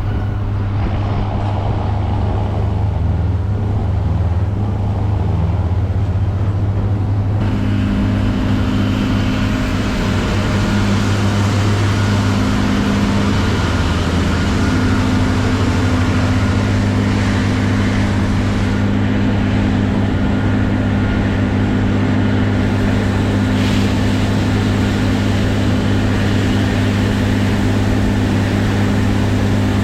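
Heavy farm machinery running steadily under a deep engine hum. About seven seconds in, further steady hums and a brighter rushing noise join in, and the sound grows fuller.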